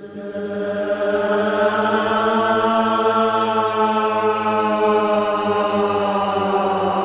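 Background music: a low, sustained chant-like drone held on one note with a rich stack of overtones, swelling in from silence over about the first second and then holding steady.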